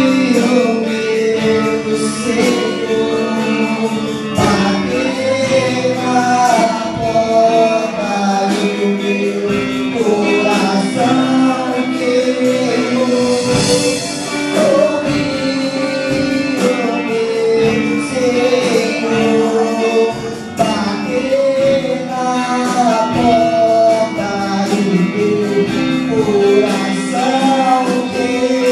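Gospel song with a singer's melody over instrumental accompaniment.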